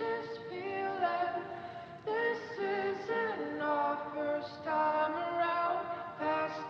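Music with sustained vocal-like notes, a choir-like or synthesised singing texture moving through held chords.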